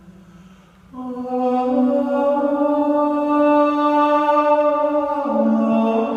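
Slow background music of long held notes. It is quiet for the first second, then a sustained chord comes in and shifts down to a lower note about five seconds in.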